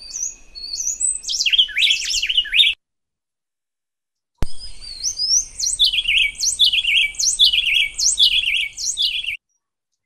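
Recorded wren duets played back twice. First comes about three seconds of jumbled, overlapping whistled notes, where the juvenile female has not yet learned the cadence. After a pause of about a second and a half comes about five seconds of a clear staccato duet, with quick repeated notes in a steady alternation, as the juvenile now sings in time with her mother and the male.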